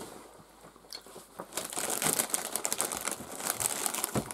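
Nacho chips crunching and crackling close to the microphone: a dense run of crisp crackles beginning about a second and a half in and easing off near the end.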